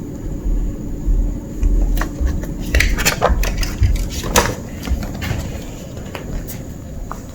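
Kitten eating, with scattered crunching clicks and small knocks over low thumps; the growling has stopped.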